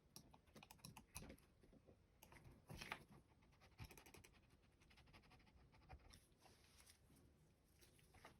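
Faint scratching and light plastic clicks from a small corded computer mouse being handled and worked on, with a longer rubbing stroke about three seconds in.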